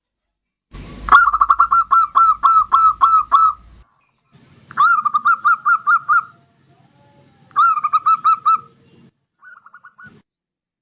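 Zebra dove (perkutut) calling in three phrases of quick repeated notes, each note sliding up then down. The first phrase starts about a second in and is the longest and loudest; a short faint phrase follows near the end.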